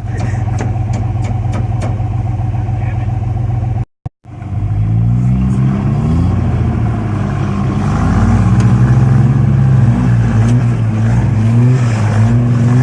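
A Toyota off-road truck's engine running steadily, then after a brief break revving up and down over and over as the stuck truck works to drive out.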